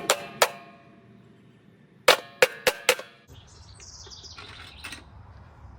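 Sharp, ringing metal-on-metal blows as a hammer is beaten against a lawnmower engine's casing to break a hole through it: two blows at first, then four quick ones about two seconds in.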